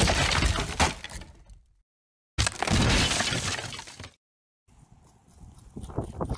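Crashing, shattering sound effect in two loud bursts with a sudden silence between them, each fading over about a second and a half. Near the end it gives way to faint background noise with a few light taps.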